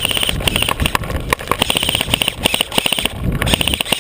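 Airsoft guns firing in rapid bursts: fast mechanical clicking with a buzzing whine, in several short strings of shots one after another.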